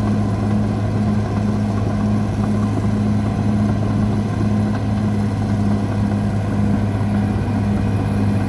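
CAT D6R XL bulldozer's diesel engine running steadily: a loud, even low drone with a regular throb.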